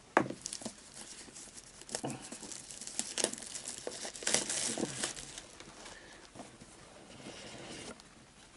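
A small cardboard box and its packaging being handled and opened: irregular rustling, scraping and light knocks, with a sharper knock just after the start.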